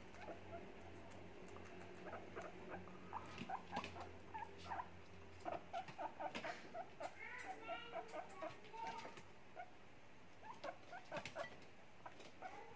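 Two Abyssinian guinea pigs chewing lettuce and cucumber: a run of small crunching clicks and short squeaky noises, thickest in the middle, over a steady low hum.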